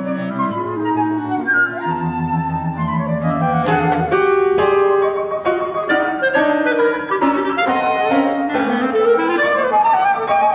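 Chamber ensemble of flute, clarinet, violin, cello and piano playing modernist classical music. Flute and clarinet lines run over short repeated cello notes, with loud piano chords struck about four seconds in and quick repeated piano figures after.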